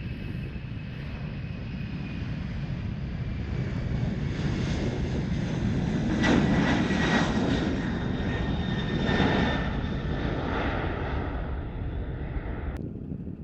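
Airliner's engines at takeoff power as the aircraft passes: a rushing roar with a steady high whine that builds to a peak past the middle and then eases off. The high part drops out abruptly near the end.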